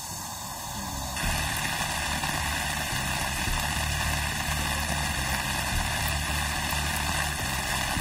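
Steady rain falling on wet pavement and puddles, a constant hiss that sets in about a second in. Low sustained background music runs underneath.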